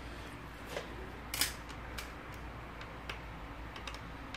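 A few light, scattered clicks and taps of fingers and a small screwdriver handling an opened smartphone on a work surface, the sharpest about a second and a half in, over a faint steady hum.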